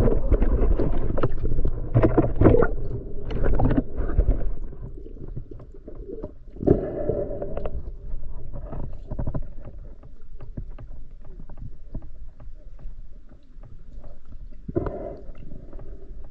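Water splashing and gurgling around the camera, heavy for the first few seconds, then lighter and choppier with small knocks.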